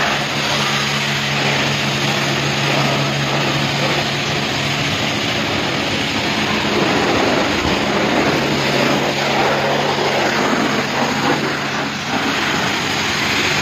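Self-service car-wash pressure lance spraying high-pressure rinse water onto a car body and the wet floor: a steady hissing spray with a steady low hum underneath.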